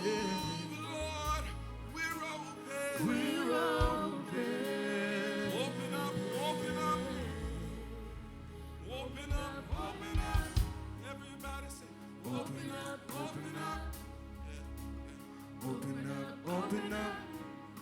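Gospel worship music: singing over a band with a bass line and a few sharp drum-like hits about ten seconds in.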